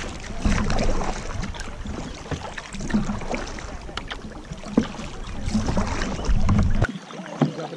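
Kayak paddle strokes splashing and dripping in calm water, a few sharp splashes among them. Wind rumbles on the microphone and drops away suddenly near the end.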